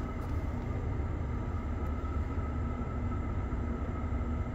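Steady low street rumble with faint, even hum tones running through it and no distinct events.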